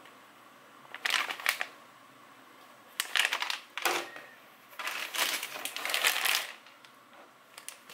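Plastic packaging bags crinkling and rustling as items are handled and pulled from a cardboard box, in about four bursts, the last lasting over a second.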